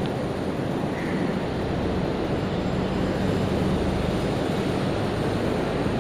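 Steady rushing background noise with a faint low hum, like a running machine such as a fan.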